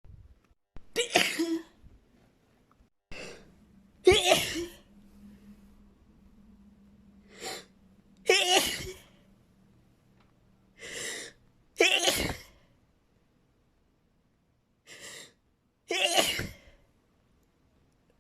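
A person sneezing over and over, pepper-induced sneezes: five loud sneezes about four seconds apart, most with a shorter, quieter sound about a second before.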